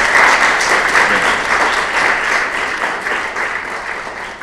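Audience applauding: a dense patter of many hands clapping that slowly dies down in the second half.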